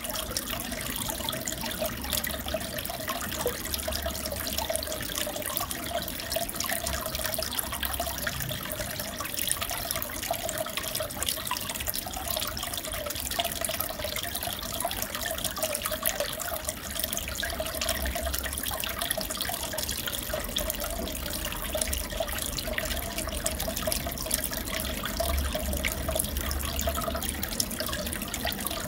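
Aquarium water trickling and bubbling steadily, with a constant patter of small splashes.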